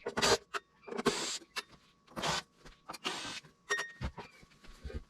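Handling noises: a string of short scraping rustles about once a second, with a few sharp clicks near the end.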